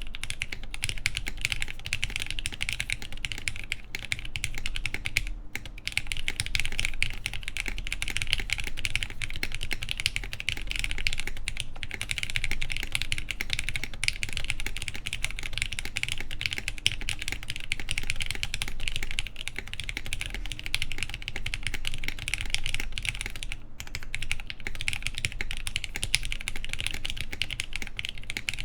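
Steady, fast typing on a mechanical keyboard with lubed linear Cherry MX Black switches, mounted on the PCB without a plate and fitted with Hammer CRP keycaps. The keystrokes run as a dense stream of clicks, broken by a few short pauses.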